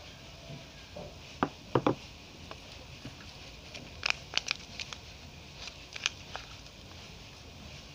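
Bars of soap knocking together a few times, about a second and a half in, as one is set down on the pile. Then the wrapper of a bar of Glori soap crinkling in short crisp clicks as it is handled, between about four and six seconds in.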